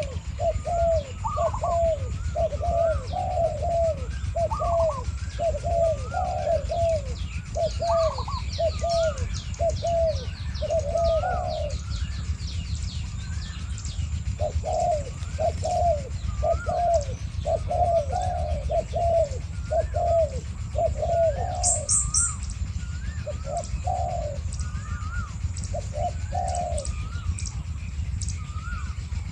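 Spotted doves cooing in repeated phrases, a caged decoy and a wild bird calling back and forth, with a short break about halfway. A few thin chirps from small birds come in, and a steady low rumble runs underneath.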